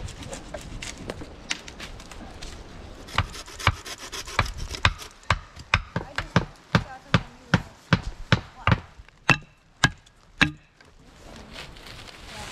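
A hand tool chopping repeatedly into wood and earth: sharp strikes about two a second start about three seconds in, a few with a short metallic ring, and stop near the end.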